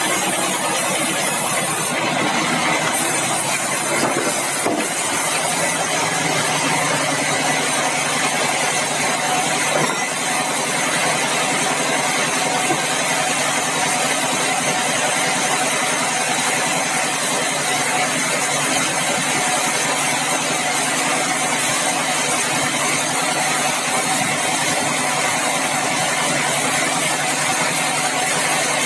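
Sawmill machinery running steadily: an engine-driven drone with a constant hum and dense mechanical noise that does not change.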